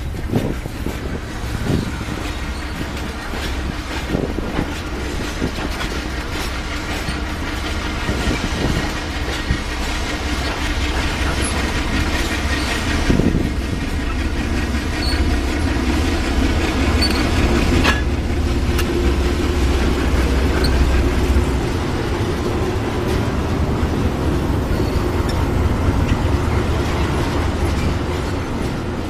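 Loaded iron-ore gondola wagons rolling slowly past with a steady low rumble, their steel wheels knocking over rail joints now and then, with faint wheel squeal.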